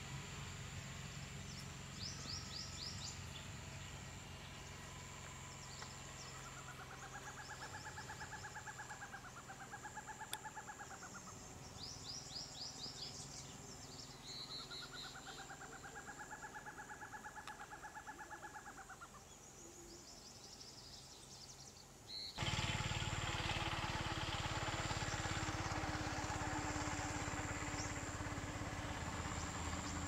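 Forest owlet calling: two spells of rapid pulsed notes, each swelling and fading over a few seconds, with small birds chirping high above. About two-thirds through, a sudden steady rumble of road traffic takes over.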